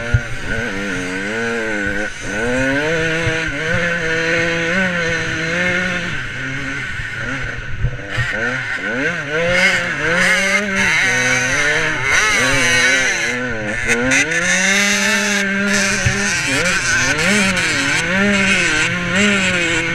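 KTM 85 two-stroke motocross bike's engine, heard close up from the bike itself, revving up and dropping back again and again as the rider works the throttle and gears over the ruts and jumps.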